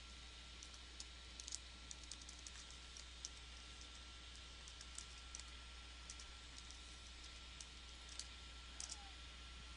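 Faint computer keyboard typing: scattered soft key clicks over a low steady hum.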